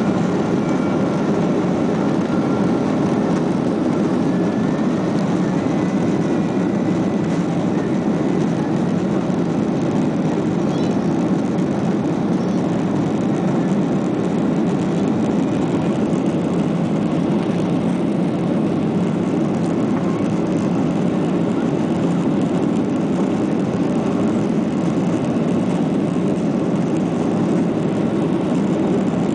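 Boeing 737-800 jet engines and airflow heard from inside the passenger cabin during takeoff, a steady heavy drone with a faint high whine over it in the first several seconds.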